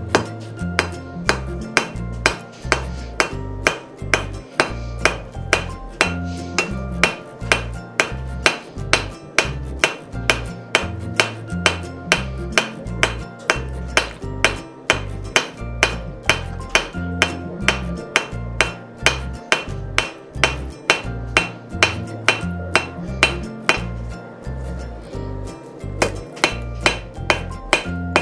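Blacksmith's hand hammer striking hot steel bar on an anvil in a steady rhythm of about two blows a second, each blow ringing briefly. There is a pause of about two seconds near the end before the hammering resumes.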